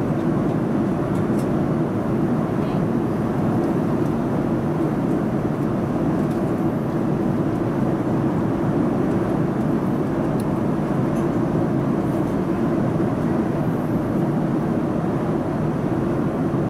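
Steady cabin noise of a Boeing 787-9 airliner in flight: an even, deep rushing hum of airflow and engines that does not change.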